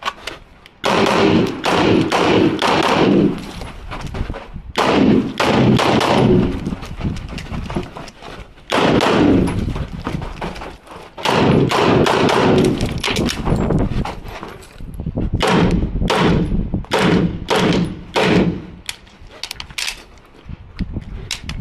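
Walther PDP pistol firing through a practical-shooting stage: quick strings of shots in clusters, with short pauses between them, each shot ringing off the surrounding concrete walls.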